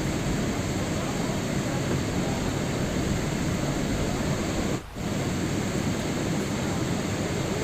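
Steady rain, an even hiss with no distinct drops or rhythm, briefly dipping in level for a moment about five seconds in.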